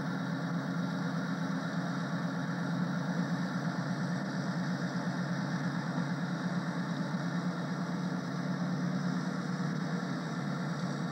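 An engine idling steadily, a constant low hum with no change in speed.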